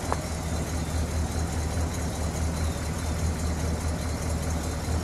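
The 1968 Imperial Crown's 440 cubic-inch V8 idling steadily with an even low rumble.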